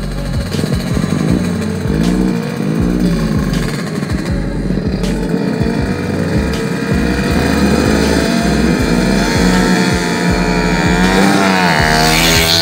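Small motorcycle engine revving up and down repeatedly as the throttle is worked through the gears while riding, then running at steadier, higher revs in the second half.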